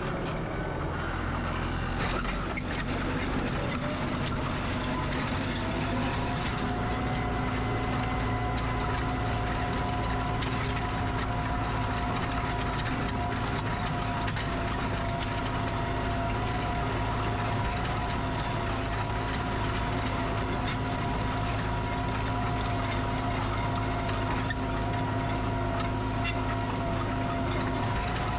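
Kubota tractor's diesel engine running steadily under work, raking a field with a three-point rake. The revs rise slightly about five seconds in, then hold.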